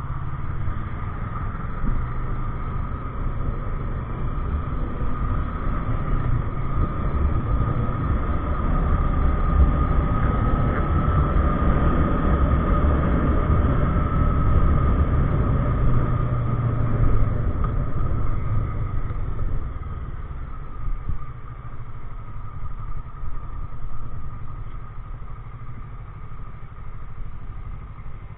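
Kawasaki ER-6n's parallel-twin engine running under way, a steady low rumble with a constant higher whine. It grows louder through the middle and eases off after about twenty seconds.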